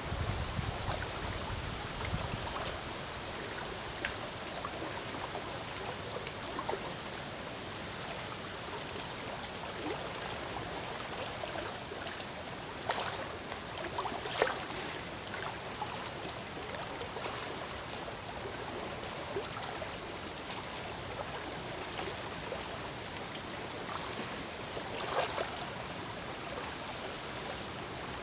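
Wind-driven lake waves lapping and washing steadily against the shore, with a few louder splashes: two close together near the middle and one near the end. Wind buffets the microphone with a low rumble at the start.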